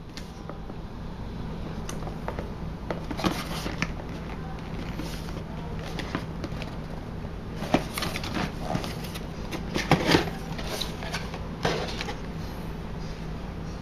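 Hands handling and opening a cardboard phone box: scattered rustles, scrapes and light taps of cardboard, with sharper knocks about eight and ten seconds in, over a steady low hum.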